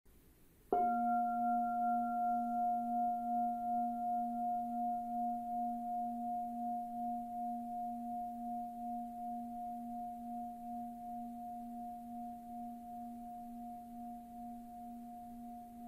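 Singing bowl struck once about a second in, ringing on with a low hum and a higher tone that waver slowly as they gradually fade.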